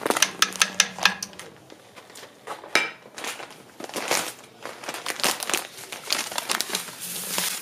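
Crinkling and rustling in repeated bursts as crushed malt is tipped and stirred into the mash water in a stainless brew kettle, with one short metallic clink a little under three seconds in.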